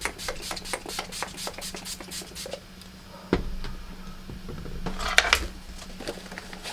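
Quick run of spritzes from the pump of an Urban Decay De-Slick setting-spray bottle, misted onto the face. A thump follows about three seconds in, and a folding fan is flicked open with a short rustle near the end.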